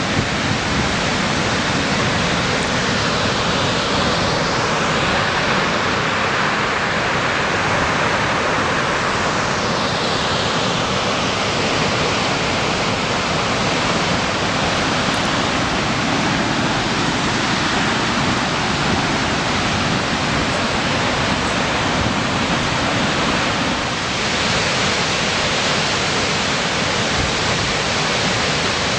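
Vøringsfossen waterfall: a loud, steady rush of falling water.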